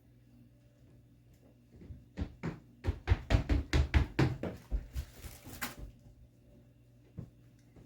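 Parts of a disassembled cordless ratchet being handled and fitted back into the housing: a rapid run of sharp clicks and knocks for about four seconds, with a brief scraping rustle near the middle.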